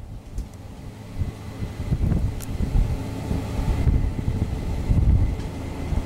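Diesel engine of a Case IH 8120 combine running as it travels at road speed, with the tractor and grain cart following, a low steady rumble that grows louder about two seconds in. Gusts of wind buffet the microphone.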